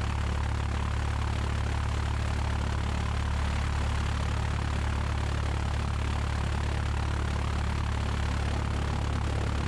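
1969 Cessna 172's four-cylinder piston engine and propeller idling with a steady low hum while the aircraft holds short of the runway.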